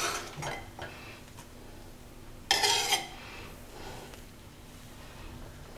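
Metal spoon stirring and scraping against a cooking pot of simmering curry: a few short strokes at first, then one louder scrape about two and a half seconds in.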